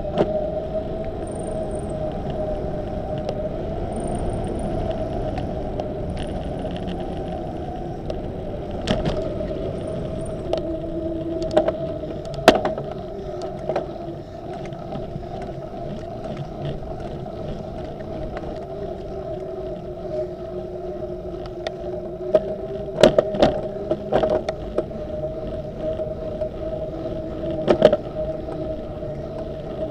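Bicycle rolling along a paved path: a steady hum of ride and tyre noise, with sharp knocks and rattles from bumps every few seconds, several close together about two-thirds of the way through.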